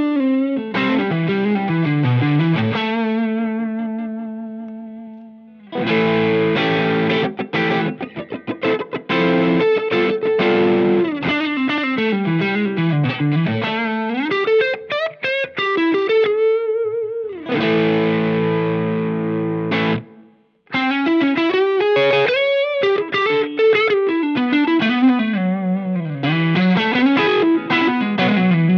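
Electric guitar played through a Cornerstone Antique Classic Drive V2, a Tube Screamer-style overdrive pedal, with a mild overdriven tone. It plays single-note licks and chords left to ring, with a brief stop about twenty seconds in.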